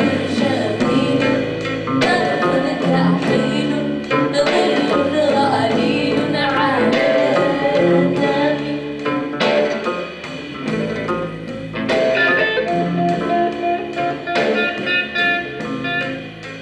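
Music with plucked strings and a singing voice.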